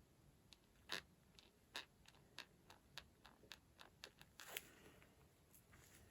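Faint, irregular small clicks and taps of nail-art tools being handled during gel painting, a dozen or so, the loudest about a second in and again near four and a half seconds.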